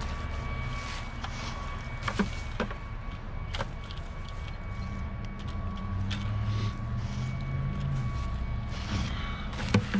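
Steady rumble of road traffic, growing a little louder in the second half as vehicles pass, under a faint steady high-pitched tone. A few sharp clicks stand out, twice a couple of seconds in, once near four seconds and once just before the end.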